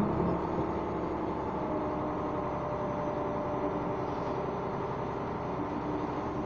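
Steady engine and road noise of a moving motor vehicle.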